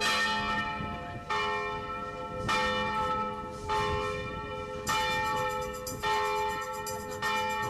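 Church bell tolling: seven strokes evenly spaced about a second and a quarter apart, each ringing on and fading into the next.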